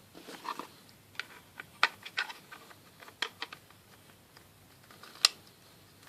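A magnetic precision screwdriver set being handled: a string of sharp clicks and taps, the loudest about two seconds in and near the end.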